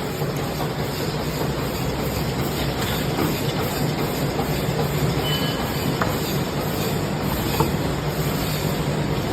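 Double-wall paper cup making machine running: a steady mechanical din with a low hum underneath and a few light clicks, plus a short high tone about five seconds in.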